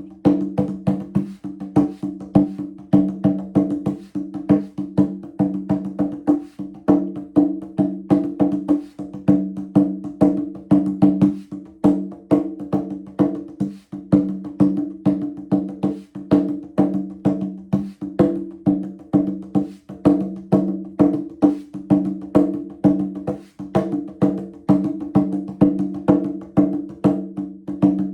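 Percussion music: a quick, steady pattern of sharp strikes on a pitched, wood-block-like percussion instrument, with two low notes ringing under it throughout.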